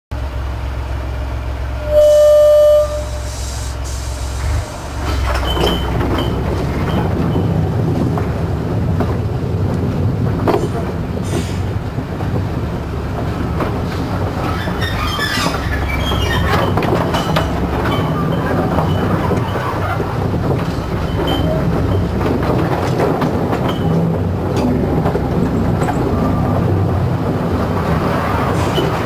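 A short horn toot from a small narrow-gauge Hunslet locomotive about two seconds in, over its low running engine. From about five seconds the train is moving, the loco's engine running steadily under the rattle and clatter of the wagons on the track, with occasional wheel squeaks.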